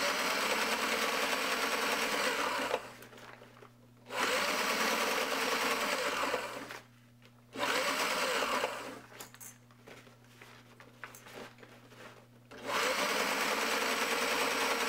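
Sailrite Ultrafeed sewing machine stitching through sailcloth in four runs of a few seconds each, with short pauses between them.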